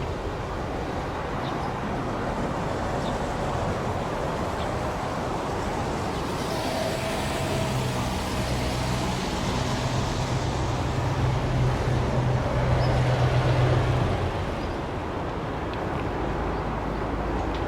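A train passing along the track: a low, steady hum builds about six seconds in, is loudest a little before fourteen seconds, then drops away and leaves a steady background rumble.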